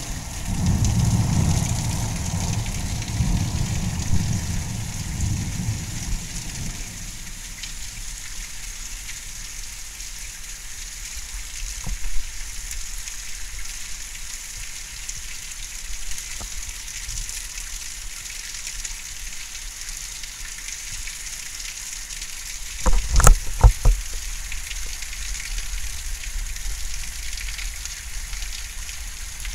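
Steady hiss of heavy rain in a thunderstorm, with a low rumble of thunder over the first few seconds. Late on, a quick run of four or five sharp knocks stands out as the loudest sound.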